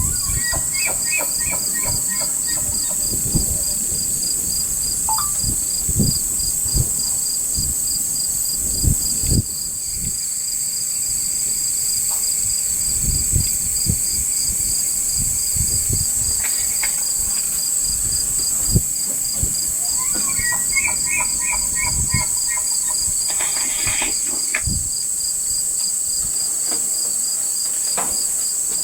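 A chorus of insects: a steady high trill together with a fast, even pulsing chirp, with scattered low thumps.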